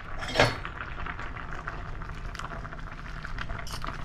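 A pot of penne pasta bubbling at a boil on an electric stove, a steady fine crackle, with one sharp metal clank about half a second in.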